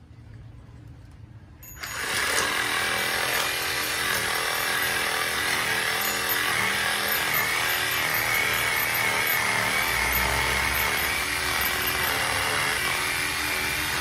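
Bosch GSA 18V-083 cordless reciprocating (sabre) saw starting suddenly a little under two seconds in and then running steadily, its blade cutting into the tree's lower branches.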